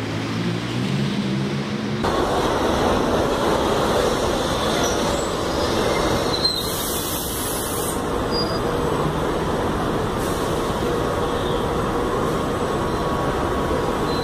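São Paulo Metro Line 1 train running into a station: the steady rumble of steel wheels on rail and motor noise, with a faint steady whine. It gets louder about two seconds in, and there is a brief high hiss about halfway through.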